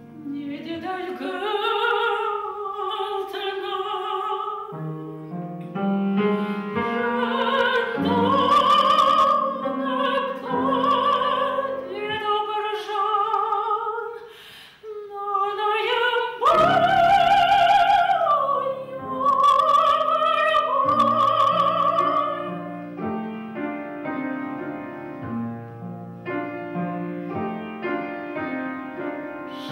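A woman sings an operatic aria in full classical voice with wide vibrato, accompanied by a grand piano. The voice breaks off briefly about halfway through, then returns on its loudest, highest phrase.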